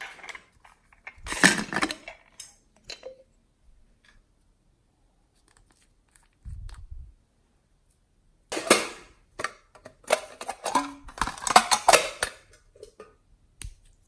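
Hands squishing and poking glossy and foam slime in a glass tray: short bursts of sticky, crackly squishing about a second in and again from about eight and a half to twelve and a half seconds in. A soft low thump comes around six and a half seconds in.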